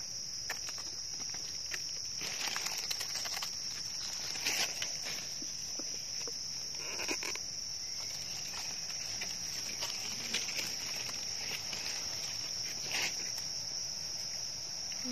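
A steady, high-pitched insect chorus trilling without a break, with scattered short rustles and clicks from leaf litter being handled.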